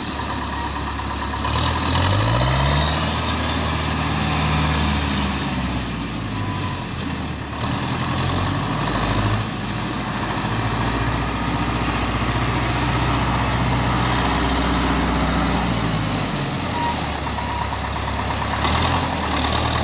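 Tractor diesel engine running as the tractor drives. The revs rise about two seconds in, ease back a few seconds later, then fall and climb again near the end.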